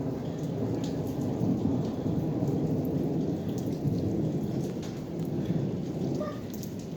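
Thunderstorm: rain falling steadily under a continuous low rumble of thunder.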